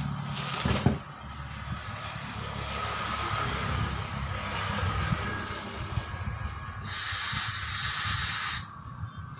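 Compressed air hissing loudly for nearly two seconds, starting late and cutting off sharply, as the control valve of a truck-tyre bead-breaker machine is worked. A single metallic knock sounds about a second in, over a low steady rumble.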